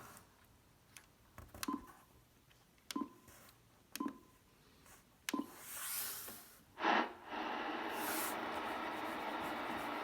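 Ten-Tec Paragon HF transceiver beeping at about five front-panel key presses, short tones with clicks, while band changes are entered. Then its speaker gives swells of noise that settle into a steady hiss of band static.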